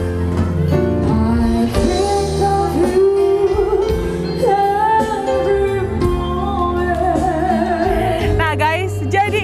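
Live band playing a song: a singer holding long notes with vibrato over guitar and a steady bass line.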